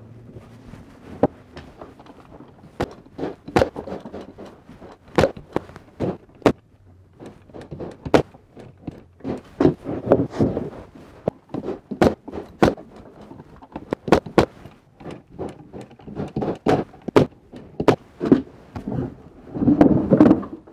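Wooden beehive super boxes being handled and fitted together on a workbench: an irregular string of sharp wooden knocks and clunks, with a denser clatter twice.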